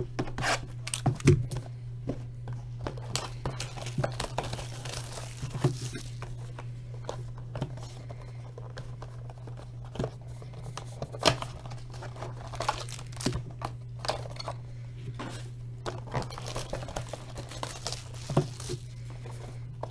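Trading-card box packaging being opened by hand, crinkling and tearing in irregular crackles and snaps over a steady low hum.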